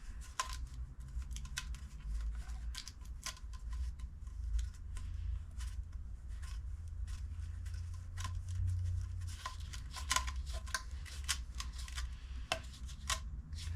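Scattered light clicks and taps from handling containers while engine oil is being topped up, over a low steady rumble.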